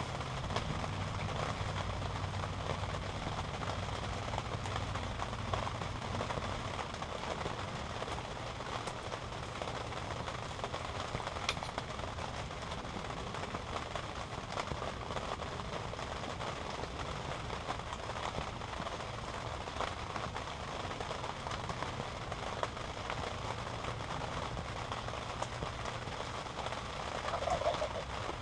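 Steady outdoor hiss, with a low hum for the first six seconds, a single click near the middle and a brief bird call near the end.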